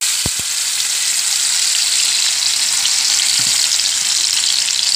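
Tomato puree hitting hot oil in a kadai and sizzling loudly. It starts suddenly and goes on steadily.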